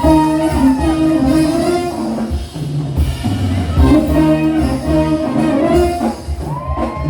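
Live samba de gafieira band playing dance music: held melody notes over a steady bass line and drums.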